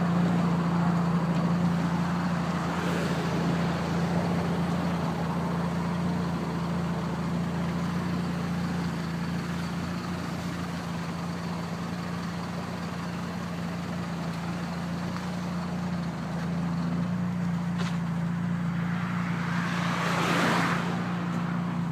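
Vehicle engine idling steadily, with another vehicle passing near the end.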